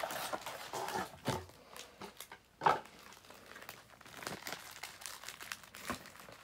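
Foil trading-card pack wrappers crinkling as they are handled, with a few sharper crackles.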